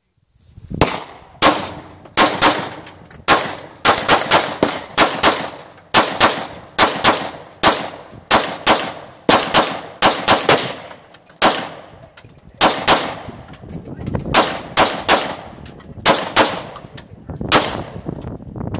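Glock 19 Gen 3 9 mm pistol firing a long string of single shots at a steady pace of about one to two a second. Each shot is a sharp crack with a short echoing tail.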